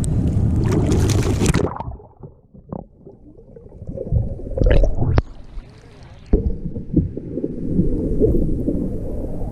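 Water splashing around a kayak, heavy for the first two seconds, then quieter lapping with a few sharp knocks.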